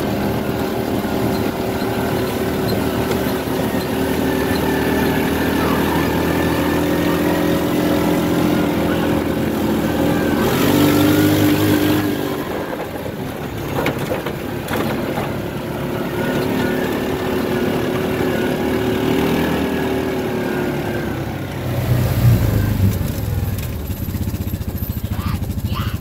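Engine of a small vehicle towing a sled on a strap, running steadily under light load; its pitch climbs slowly and drops twice, about 12 and 21 seconds in, followed by a louder low rumble.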